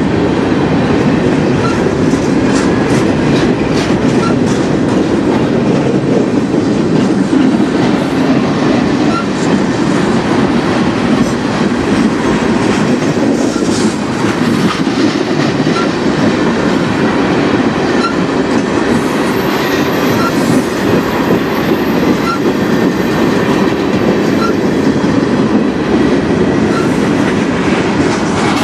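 Freight train cars rolling past close by: a loud, steady rumble of steel wheels on the rails with irregular clicks and clacks as the tank cars and hoppers go by.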